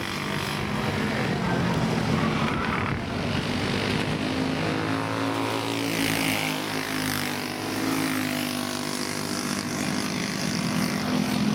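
Racing karts with Briggs & Stratton Animal single-cylinder four-stroke engines running at speed, several engines overlapping with their pitch rising and falling as the karts pass and lift through the corners.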